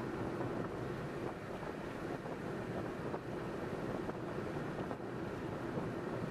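Car driving along the road: steady road and tyre rumble with wind noise on the microphone.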